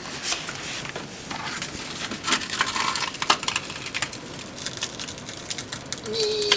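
Sandpaper rustling and scraping against a stuck spin-on oil filter as hands try to grip and twist it off, with irregular light metallic clicks and clinks.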